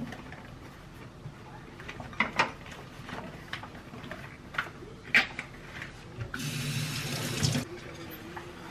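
A tap running briefly for about a second, near the end, among a few sharp knocks and clinks of handling things.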